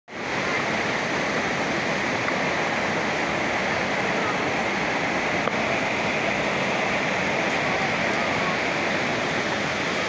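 Small mountain waterfall cascading over rocks, a steady rushing of falling water.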